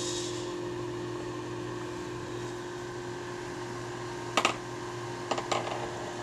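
Steady low hum of an egg incubator's fan, with a sharp click about four seconds in and a couple more a second later as the egg is handled at the candler.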